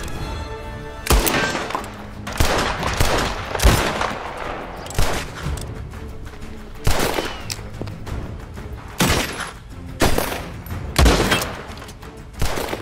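Gunfire in a shootout: about ten single revolver shots at irregular intervals, each with a short ringing tail, over background music.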